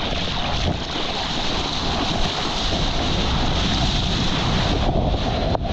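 Seawater rushing and splashing at close range as a surfer paddles through the water on a surfboard, with wind buffeting the microphone; a steady, dense rush.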